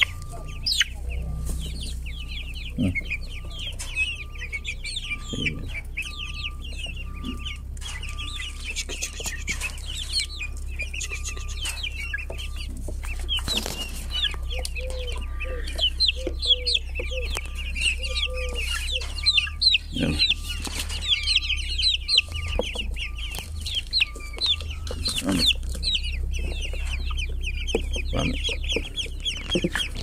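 Chicks and ducklings peeping continuously in a dense stream of short, high chirps, with hens clucking and a few knocks from handling.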